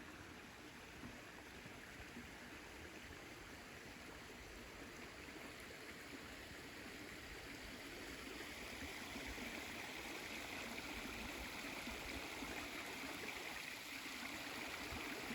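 Stream of water flowing steadily, a faint rushing that grows a little louder about halfway through.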